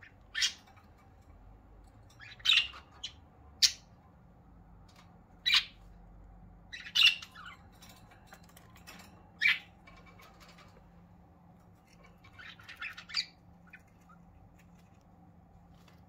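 Budgerigars giving short, sharp squawks and chirps, one every second or two, with a quick run of chirps near the end.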